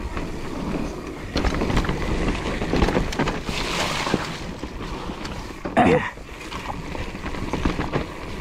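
Mountain bike riding fast down a dirt forest singletrack: wind buffets the camera microphone while the tyres run over dirt and dry brush and the bike rattles and knocks over bumps. About six seconds in, a short loud sound falling in pitch stands out as the loudest moment.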